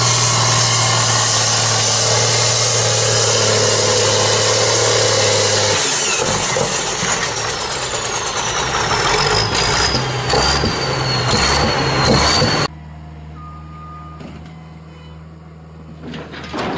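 Case IH International tractor's diesel engine running hard at high revs while it pours out black smoke. After about six seconds the engine note drops away and a high whistle slides down in pitch, with a few knocks. Near the end it cuts off suddenly to a quieter, steady low engine hum.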